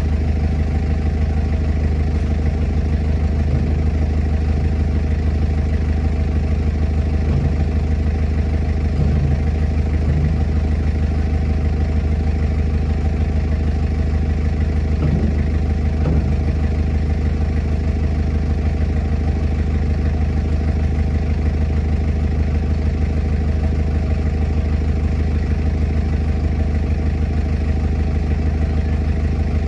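Heavy diesel engine idling steadily, a low, even drone, with a couple of faint clanks near the middle.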